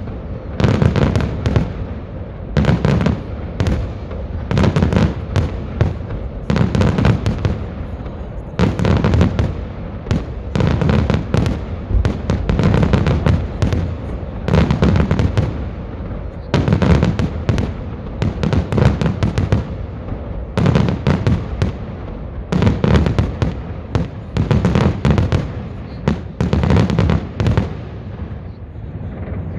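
Festive salute fireworks: aerial shells bursting in dense clusters of bangs and crackles, a new cluster about every one and a half to two seconds, stopping near the end.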